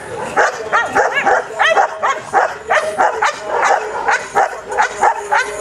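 Dog yipping and whining over and over, short rising-and-falling cries coming two or three a second.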